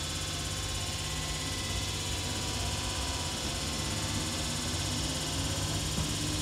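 ScotRail electric multiple unit standing at the platform, its onboard electrical equipment giving a steady hum made of several constant tones.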